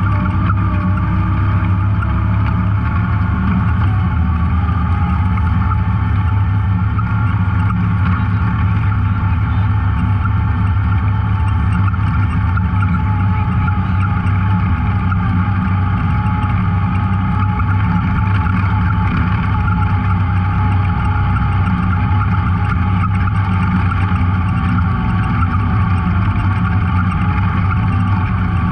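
Off-road vehicle's engine running steadily while being ridden, heard from on board, its pitch shifting slightly in the first few seconds.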